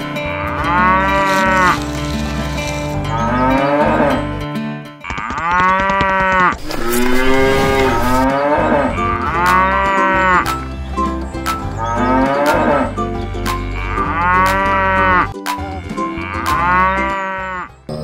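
Cows mooing, one after another: about eight long moos, each lasting a second or two.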